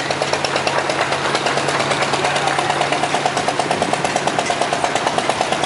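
Vintage farm tractor engines running at low speed as the tractors drive slowly past, a quick, even exhaust beat. The beat grows stronger about halfway through as a McCormick Farmall A passes close by.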